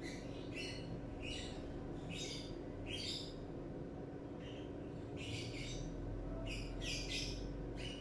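Bird chirping in short, irregular calls, several a second with a brief pause midway, over a steady low hum.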